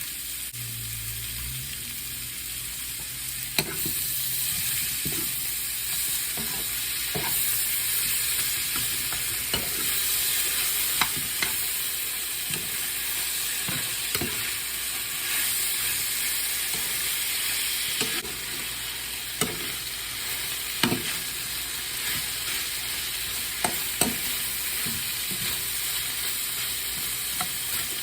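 Chopped vegetables and chicken frying in oil in a pan, with a steady sizzle and irregular knocks and scrapes of a utensil against the pan as they are stirred.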